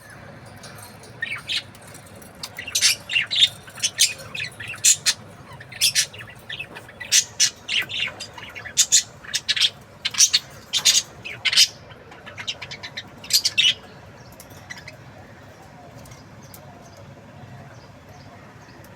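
Budgerigar giving a rapid run of short, sharp chirps and squawks, then falling to a few faint chirps for the last few seconds.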